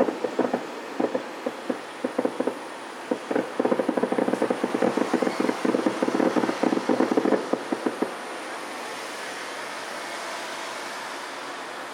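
Distant fireworks bursting in a dense, rapid run of pops and cracks. About eight seconds in it thins to a steady hiss with only a few pops.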